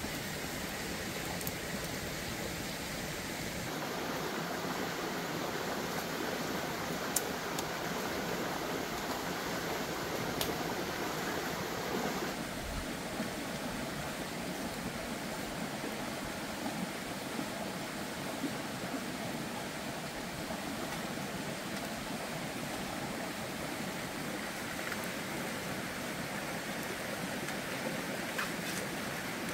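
Steady rushing outdoor noise, like running water or wind, with a few faint sharp crackles; its tone shifts twice, at about four and about twelve seconds.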